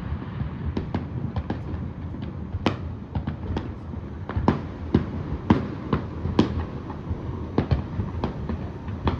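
Aerial fireworks display: an irregular run of sharp bangs and crackles over a steady low rumble, with a few louder bangs through the middle.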